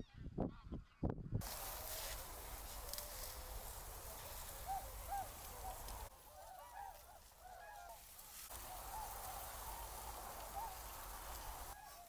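A large flock of waterbirds honking, many short calls overlapping over a steady hiss. A few low thumps sound in the first second and a half before the calling takes over.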